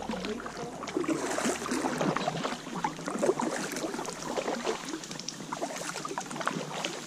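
Kayak paddle strokes in shallow creek water: the blade dipping and splashing, with a dense crackle of drips and small splashes.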